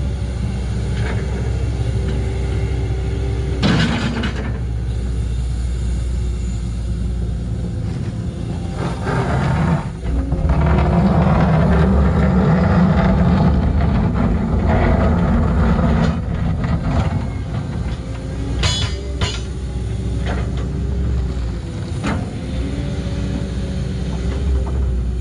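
Hydraulic excavator digging a trench in clay: its engine runs steadily and grows louder for several seconds midway while the bucket digs. A few sharp knocks and scrapes of the bucket against the soil are heard, one about four seconds in and a quick pair near the end.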